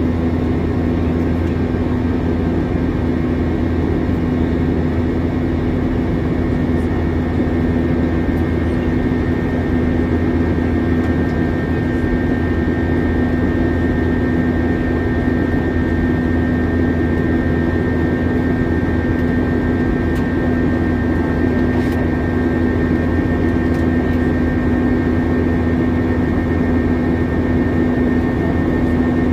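Steady in-flight cabin noise of a Lufthansa Airbus A321 with IAE V2533 engines: engine drone and airflow, with a constant low hum and a thin, steady higher whine.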